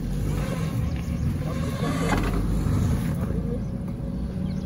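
Mahindra Thar's engine running low and steady as the 4x4 crawls up a rutted dirt trail, with a single knock about two seconds in.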